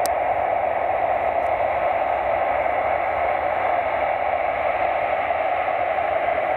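Steady rushing noise inside an Airbus A319-100 in flight: airflow and engine noise as an even hiss.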